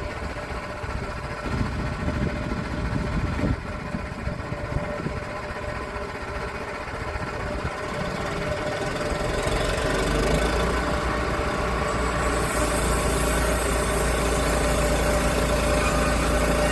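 Portable sawmill's engine starting up and running steadily, slowly growing louder, with a brighter hiss joining about twelve seconds in.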